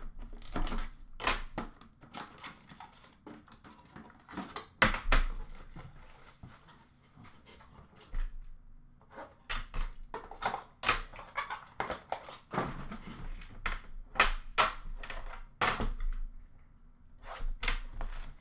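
Irregular clicks, taps and knocks of hands handling card packaging: a cardboard case box and a metal tin of hockey cards being moved, set down and opened.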